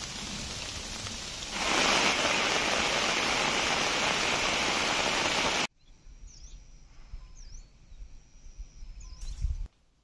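Steady rain hiss that gets heavier about a second and a half in, then cuts off suddenly. After it comes a quieter stretch with a low rumble and three short, high bird chirps.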